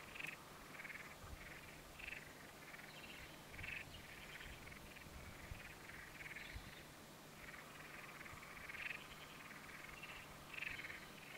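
Faint frogs calling: short chirps repeated about twice a second, irregularly, over a low steady hum.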